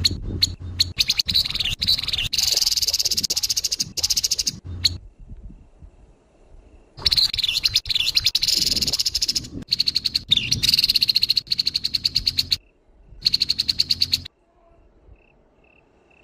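Grey-headed babbler (tepus kepala abu) giving its harsh rattling call: four bursts of fast, dry repeated notes, each a second or more long with short pauses between, stopping about two seconds before the end.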